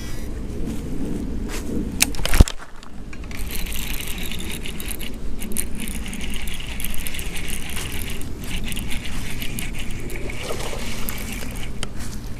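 Baitcasting reel being cranked to retrieve line: a steady high whirr with fine rapid ticking from the gears. A single sharp click about two and a half seconds in.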